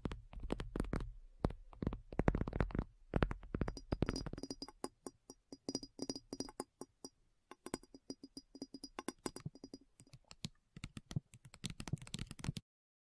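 A fast, irregular run of taps and clicks, with deeper thuds mixed in over the first few seconds and a faint high ringing tone through the middle. It cuts off abruptly near the end.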